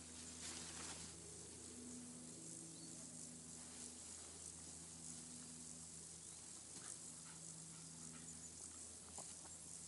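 Near silence: a faint outdoor background hiss over a steady low hum, with a few soft ticks scattered through.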